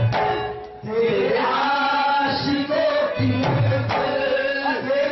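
Qawwali music: sung voices over sustained instrument tones, with a brief drop in level just under a second in.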